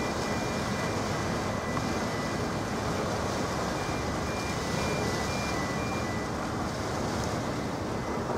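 Steady rumbling wash of a harbour tug underway close by, its engines and the water blending with wind on the microphone.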